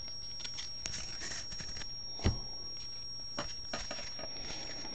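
Baseball trading cards handled by hand: light clicks and rustles as cards are slid off and set onto stacks, with one louder knock about two seconds in as a card or stack is set down.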